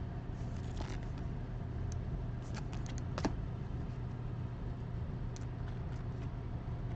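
Trading cards and pack wrappers being handled: scattered light clicks and rustles, the sharpest about three seconds in, over a steady low hum.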